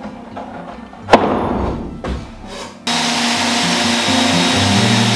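Background music throughout. About a second in, a heavy oak slab lands on the milling sled's support rails with a loud thump, followed by scraping and a smaller knock. From about three seconds in, a plunge router with a dust extractor runs with a steady rushing noise.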